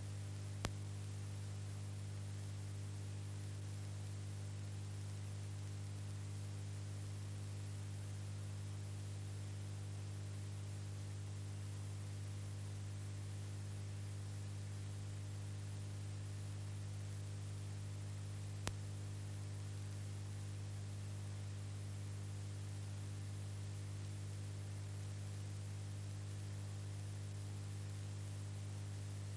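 Steady electrical hum with hiss on an empty sound track: the film was shot without sound, so only the noise of the transfer's audio chain is heard. Two brief clicks break it, about a second in and about two-thirds through.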